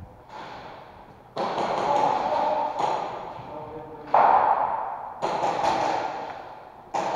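Airsoft guns firing in short bursts, with BBs rapping on plywood barricades. There are several sudden bursts, each echoing away over about a second in the warehouse.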